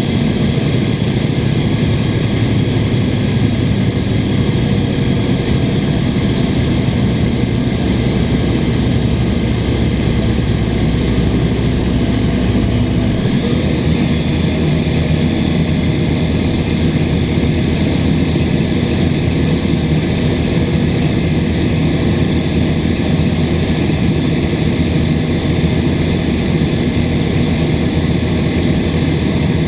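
Cummins ISL diesel of a 2005 Gillig Phantom transit bus running under way, heard from inside the bus, with the chuffing of an exhaust leak in its note and the air-conditioning blowing. The engine's low note changes about a third of the way through.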